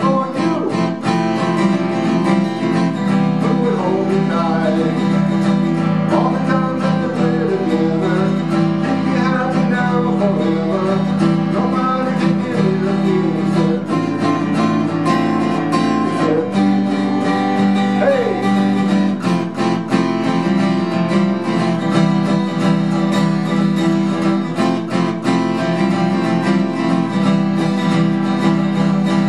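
Steel-string cutaway acoustic guitar played solo, chords with melody notes moving over a steady low bass.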